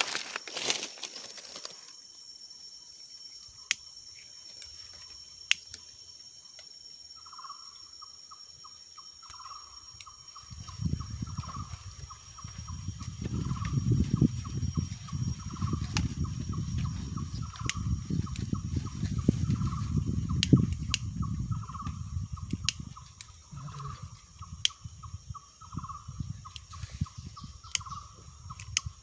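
Outdoor ambience: a steady high insect drone, a short call repeating about once a second from about seven seconds in, and scattered clicks. Through the middle a loud low rumble of wind or handling on the microphone covers it.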